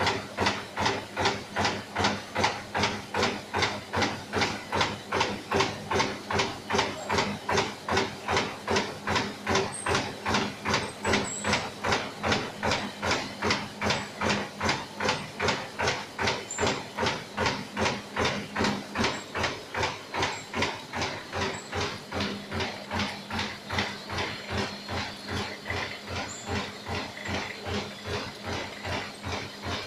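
Four-colour flexo printing and die-cutting machine running, its punching press stamping paper cup blanks in a steady rhythm of about three strokes a second, a little fainter near the end.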